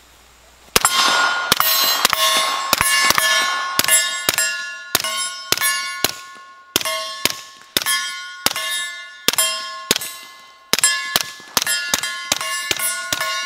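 A string of about thirty semi-automatic shots, two to three a second, from a suppressed CZ Scorpion Micro 9mm pistol firing subsonic rounds through a SilencerCo Hybrid 46. The shots start about a second in, and each muffled report comes with the bright metallic ring of a steel target being hit.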